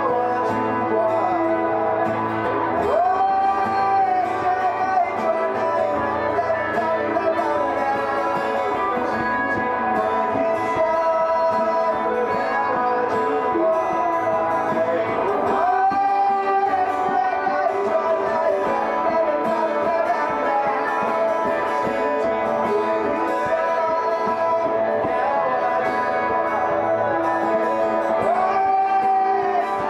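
Live small-band performance: a man singing into a microphone over strummed acoustic and electric guitars, with long held sung notes a few seconds in, about halfway through and near the end.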